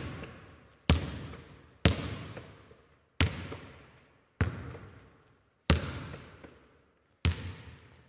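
A basketball bouncing on a hardwood gym floor, about once a second and slowing a little, each bounce echoing in the large hall.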